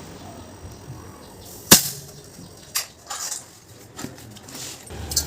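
A sharp knock a little under two seconds in, then a weaker knock about a second later and a faint one after that.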